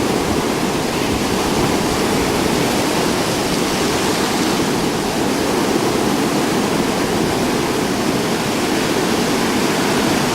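Rough storm surf washing in a steady, unbroken rush.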